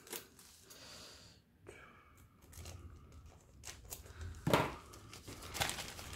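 Scissors snipping through a plastic mailing bag, then the crinkle and rustle of the plastic packaging being handled and pulled open, loudest about four and a half seconds in.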